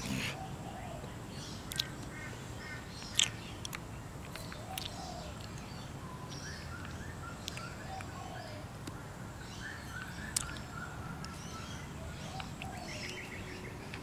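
Birds calling faintly: scattered short chirps and calls over a steady low background noise, with a few sharp clicks.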